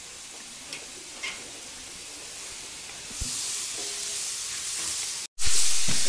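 Green vegetables sizzling as they stir-fry in a pan over an open wood fire, a steady hiss. The hiss gets louder about three seconds in and, after a brief break near the end, comes back much louder.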